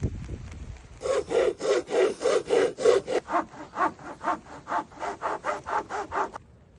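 Hand saw cutting wood with quick back-and-forth strokes, about three or four a second. It starts about a second in, grows fainter in the second half and stops shortly before the end.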